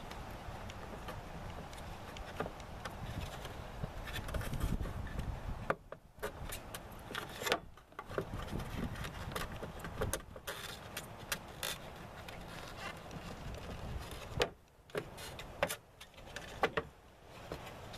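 Scattered clicks and taps of hand tools and plastic parts as a Jeep Patriot's rear tail-light assembly is worked loose, over a steady low rumble.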